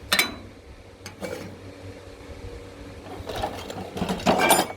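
Metal connector and tools being handled against a metal beam: two sharp clicks about a second apart, a faint mechanical hum, then a louder stretch of rattling and scraping near the end.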